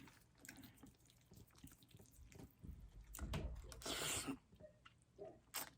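Faint sips and swallows of water, taken to cool a spicy mouthful, with a soft slurping rush about three to four seconds in and a small sharp click near the end.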